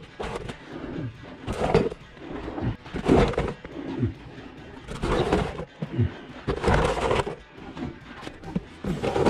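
A person crawling across a dirt crawlspace floor: a run of scuffing and scraping bursts, one about every one and a half to two seconds, as the body and arms drag over the soil.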